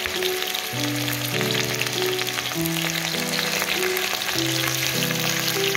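Mutton kofta balls deep-frying in hot oil, a steady crackling sizzle of many fine pops. Background music of held low notes runs under it.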